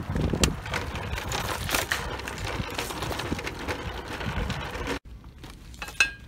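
Plastic shopping cart rolling over asphalt, its wheels and basket rattling with a steady stream of small clicks. It stops suddenly near the end, giving way to quieter indoor sound and one sharp click.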